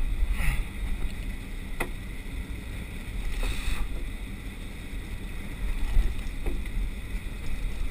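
Steady low rumble of wind and boat noise at sea on a head-mounted camera's microphone, with a few sharp clicks, the sharpest a little under two seconds in.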